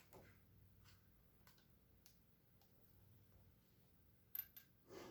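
Near silence with a few faint, scattered clicks and taps, and a short cluster of sharper clicks about four and a half seconds in.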